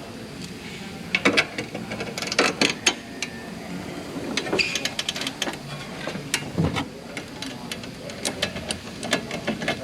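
Ratchet wrench clicking in irregular bursts, with metal clinks, as the 17 mm nut on a Mazda Miata's upper ball joint is backed off.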